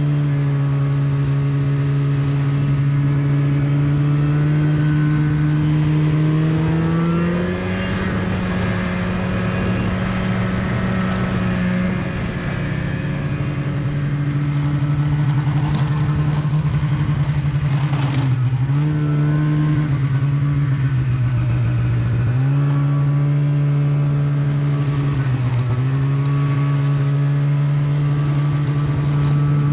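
Snowmobile engine running steadily under way. Its pitch rises about seven seconds in, then dips and recovers three times later as the throttle is eased off and reapplied.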